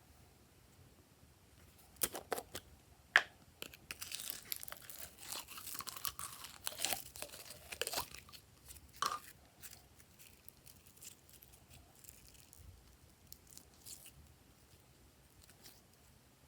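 Slime being worked by hand, with sticky crackling, popping and tearing clicks. These come thickly between about two and nine seconds in, then thin out to a few faint clicks.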